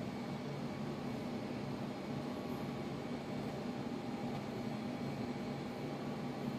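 Steady room tone: a low, even hum under a hiss, with no sudden sounds.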